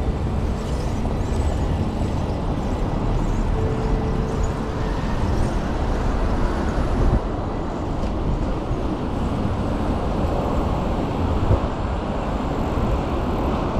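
Steady road traffic noise with wind rushing over the microphone of a camera on a moving bicycle.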